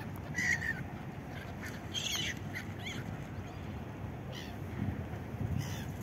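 Gulls calling: a few short, scattered cries over a steady low background rumble.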